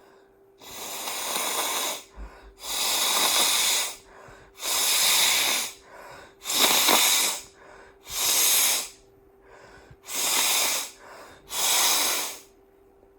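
A person blowing a snotty, congested nose hard in seven forceful blasts of about a second each, the mucus giving the blows a wet rattle.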